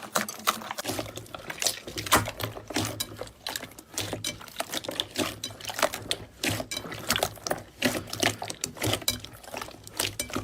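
Slime being squeezed and kneaded by hand, giving a dense, irregular run of wet, sticky clicks and pops.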